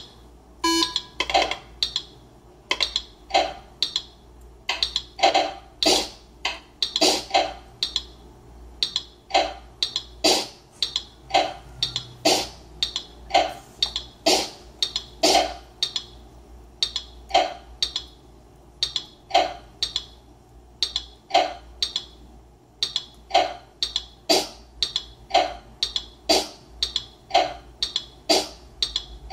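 Teenage Engineering PO-24 Office pocket drum machine playing a looping beat of sharp clicky percussion hits, several a second, with louder, fuller hits about once a second.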